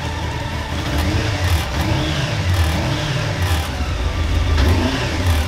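Honda CBR600 inline-four motorcycle engine running the Mega Blender's blades, revving up and down.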